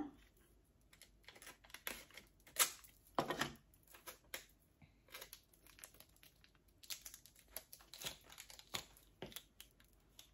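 Adhesive tape being pulled off a roll and torn, with faint crinkling and light handling ticks scattered throughout.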